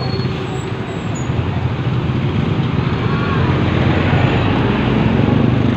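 Motorcycle engine running steadily under way, with road and wind noise rushing over the microphone; the sound grows a little louder about halfway through.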